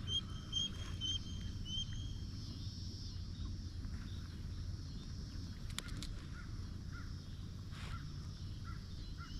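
Bald eagle calling: a quick series of five or six thin, high piping notes in the first two seconds, over a steady low rumble of wind and river.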